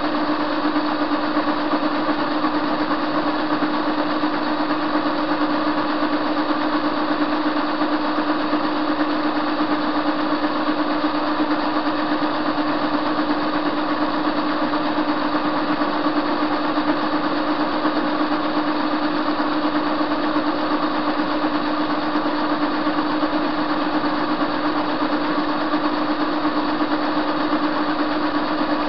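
Soviet-era TV-16 lathe running with a steady hum from its motor and drive while a metal bar turns against the cutter.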